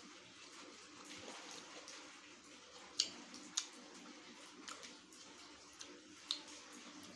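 Steady hiss of heavy rain, with a few sharp wet clicks of someone eating.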